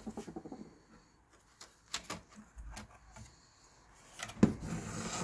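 Plastic clicks and knocks from handling a Toyota Prius Gen 2 instrument cluster as its screen circuit board is lifted out of the housing. There are a few sharp clicks in the middle, with louder rubbing and knocking at the start and again near the end.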